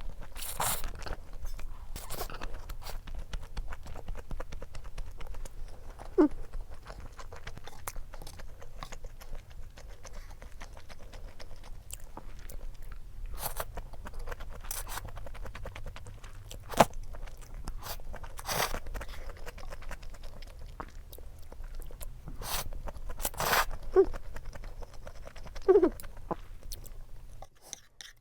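Close-up eating sounds from a meal of perilla-oil buckwheat noodles and dumplings: steady chewing and biting, with scattered sharp clicks throughout.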